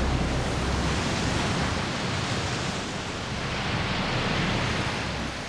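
Steady, loud rushing noise with a low rumble underneath, swelling about four seconds in and easing off near the end.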